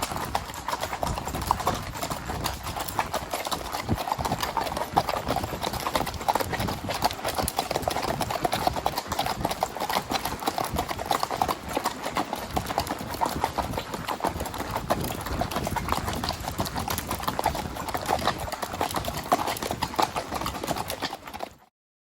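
Hoofbeats of a spotted saddle horse gelding clip-clopping in a quick, steady rhythm, cutting off suddenly near the end.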